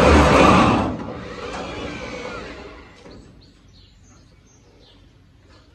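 Drill with a long extension driving a hex-head sheet-metal screw into the steel tail panel for about a second, the motor pitch shifting as the screw bites, then dying down. Faint bird chirps come through in the quieter second half.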